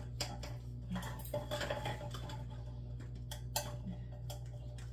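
Light clicks and clatter of spice jars and containers being handled on a kitchen counter, with a few sharper knocks, over a steady low hum.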